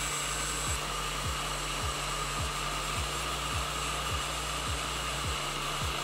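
Small electric heat gun blowing steadily on its hot setting, shrinking heat-shrink tubing over a crimped coaxial connector.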